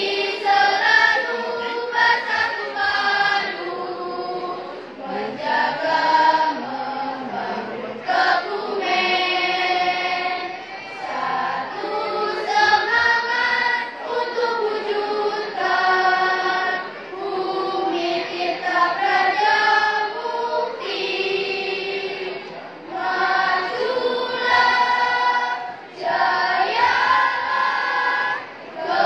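A school choir singing in parts, in held phrases broken by short pauses for breath.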